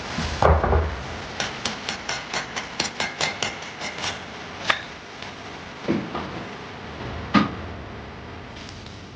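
Kitchen cleaver chopping on a wooden cutting board: a heavy chop about half a second in, then a quick run of about a dozen even strikes at four to five a second, and a few single chops after that.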